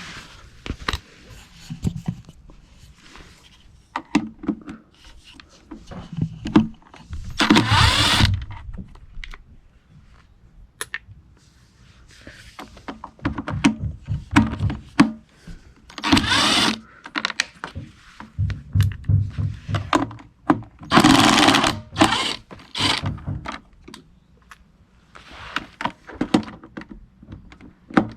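Cordless screwdriver whirring in four short runs, about a second each, backing out the screws that hold on a plastic engine cover, with clinks and handling knocks between.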